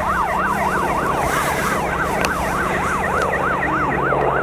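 Emergency vehicle siren on yelp, its pitch sweeping quickly up and down about three times a second, over a steady low drone.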